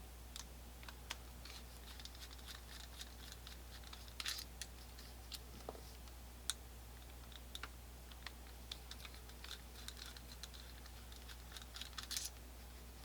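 Faint, scattered small clicks and scrapes of a screwdriver backing out the trigger and bolt screws from the frame of a Colt 1860 Army black powder revolver, with a small cluster of clicks about four seconds in and another near the end.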